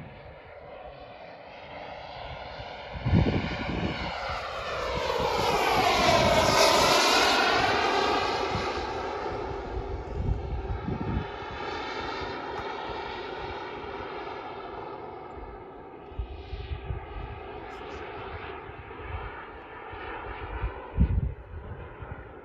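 Turbine of a Tomahawk L-39 radio-controlled model jet, flying past. It is loudest about six seconds in, where its tone sweeps down and back up, then it fades a little as it moves off. Wind buffets the microphone a few times.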